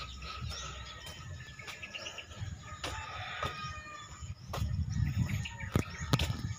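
Birds chirping faintly in the background, over a low rumble and a few sharp clicks from the phone microphone being handled. The rumble grows louder about four and a half seconds in.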